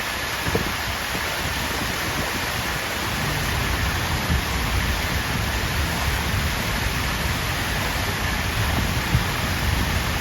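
Water fountain splashing steadily, its falling water making a constant rushing hiss with a low rumble underneath.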